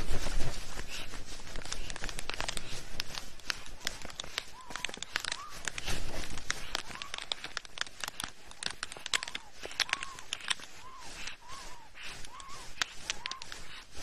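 Dense, irregular crackling and clicking as a pair of black storks mate on their stick nest. Through the middle there is a run of faint short arched calls, about one a second.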